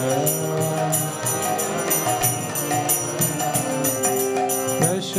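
Instrumental interlude of a devotional kirtan: a harmonium holding sustained chords while hand cymbals (kartals) keep a steady jingling beat. A voice slides in near the end to start the next sung line.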